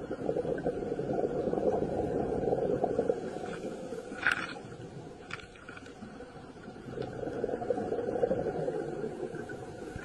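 Underwater ambience picked up on the camera: a low rushing, bubbling wash that swells twice, with a few faint clicks in between.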